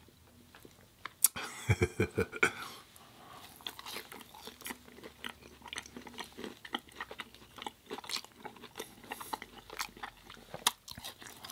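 Close-miked eating: chewing and crunching with many small, irregular mouth clicks, after one sharp click about a second in.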